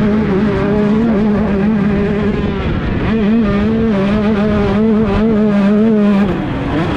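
KTM 125 two-stroke dirt bike engine screaming near wide open, its high pitch held steady with small wavers, dropping briefly about six seconds in and then climbing again.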